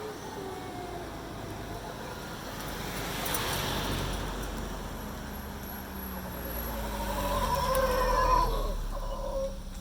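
Howler monkey roaring: a deep, rumbling roar that swells over several seconds, loudest about eight seconds in, then dies away.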